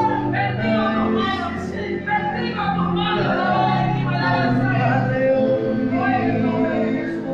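Music with a group of voices singing, the notes held and moving steadily from one to the next.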